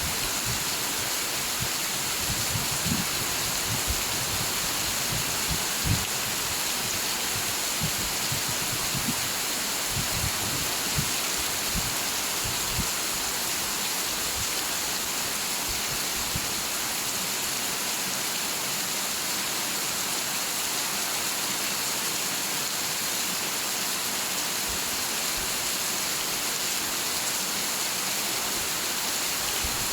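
Steady, dense rain hiss, with brief low thuds scattered through the first half that fade out about halfway in.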